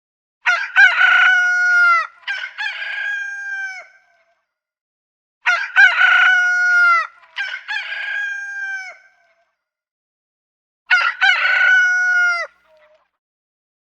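Rooster crowing three times, with a few seconds of silence between crows. Each crow starts with short broken notes and settles into a long held note that falls away at the end. The last crow is shorter than the first two.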